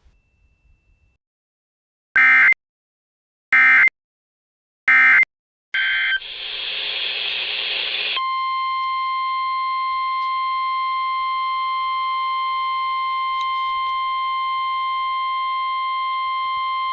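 NOAA Weather Radio test signal: three short screeching data bursts of the SAME alert header, about a second and a half apart, then a couple of seconds of radio hiss, then the steady 1050 Hz weather warning alarm tone for about nine seconds.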